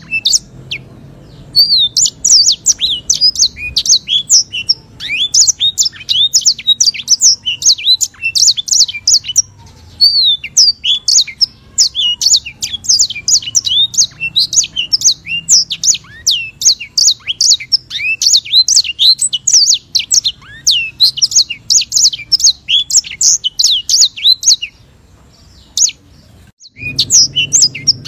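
White-rumped seedeater (sanger) singing a long, fast run of high chirps and trills, the long rolling song prized by songbird keepers. It breaks off briefly about a second in and again near the middle, then pauses for about two seconds near the end before starting again.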